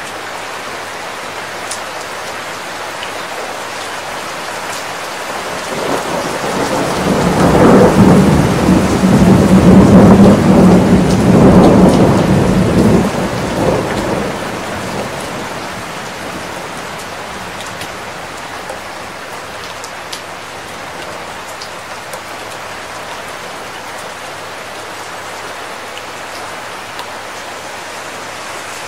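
Steady rain falling, with a long roll of thunder that builds about six seconds in, peaks as the loudest sound, and dies away by about fifteen seconds.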